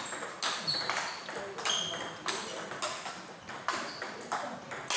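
Table tennis rally: the ball clicking back and forth off the paddles and the table, about two hits a second, some bounces leaving a short high ringing ping.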